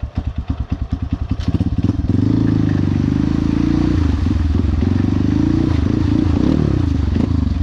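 Single-cylinder four-stroke engine of a Honda CRF150L trail motorcycle pulsing at low revs for about two seconds. It is then opened up and held at high revs, rising and dipping with the throttle.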